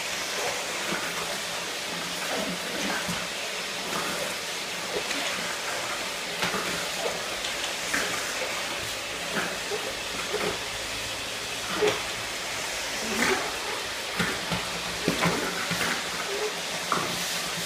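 Vacuum cleaner running with a steady hiss of suction. Scattered short knocks and scrapes come through it, more in the second half, as a French bulldog bites and shoves at the floor nozzle on a tile floor.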